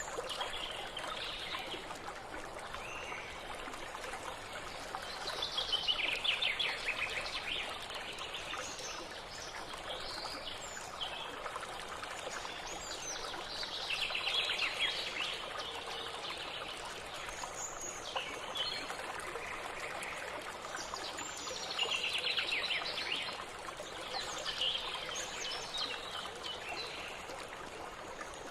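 Birdsong: a descending trill repeated about every eight seconds, with scattered chirps between, over a steady rushing hiss.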